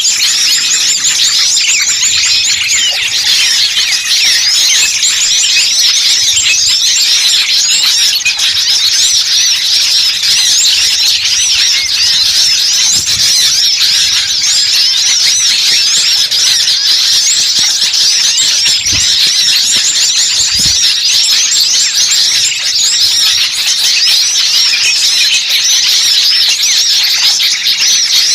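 Bird-lure recording of many small songbirds calling at once in an agitated, noisy chorus: a continuous high chatter of rapid chirps and trills with no pauses.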